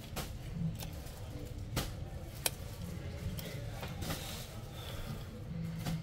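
A few sharp plastic clicks and soft scraping as a Samsung A11's LCD screen is pushed out of its frame by hand, over a low steady hum.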